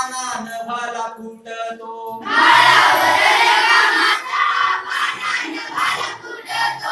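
A class of children singing a line of a Marathi poem together in unison, repeating after their teacher. The group comes in loud about two seconds in, after a single voice.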